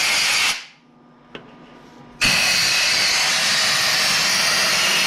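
Compressed-air blow gun hissing as it blows dirt out of a tractor's radiator. One blast cuts off about half a second in; after a short pause with a faint click, a second, long steady blast starts a little after two seconds.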